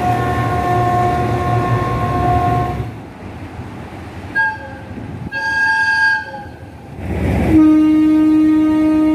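Diesel locomotive air horns sounding: a long multi-tone chord that cuts off about three seconds in, two short blasts a little later, and then a long, lower-pitched blast from a passing locomotive near the end.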